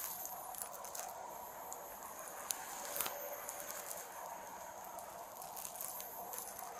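Quiet outdoor night ambience: a faint steady high-pitched hiss with scattered small clicks and crackles.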